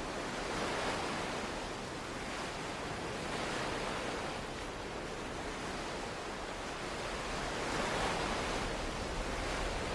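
Ocean surf washing onto a sandy beach: a steady hiss of breaking waves that swells a little every few seconds.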